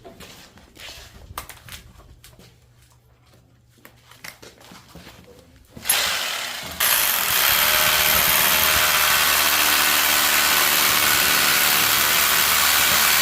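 A few faint clicks and knocks, then a power tool starts abruptly about six seconds in and runs loud and steady, its level jumping up again a second later.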